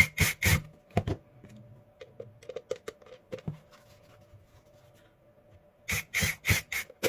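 Screwdriver driving the two screws into the bottom of a plastic car tyre inflator's housing, in short bursts. There is one cluster at the start and another near the end, with faint ticks and clicks of handling in between.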